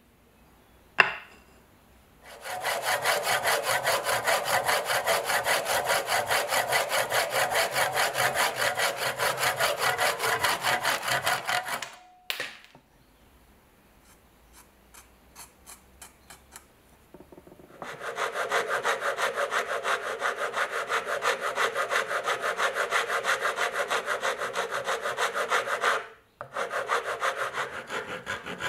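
A fine-toothed blade worked by hand back and forth on a wooden hammer handle, cutting the wood in fast, even strokes. There are two long runs of about ten and eight seconds, with a few lighter strokes between them, and a single sharp knock about a second in.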